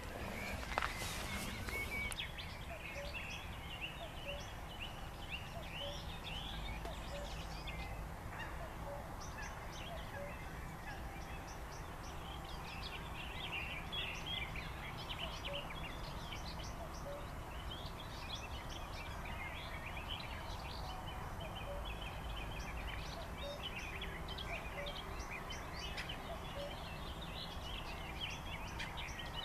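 Dense chorus of birds singing and calling, many short high chirps overlapping, with a faint low call repeating about once a second. A single sharp click sounds about a second in.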